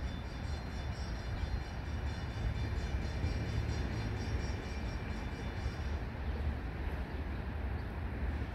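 Low, steady rumble of an NJ Transit ALP-45DP dual-mode locomotive running on diesel while still far off and approaching, under a steady hiss.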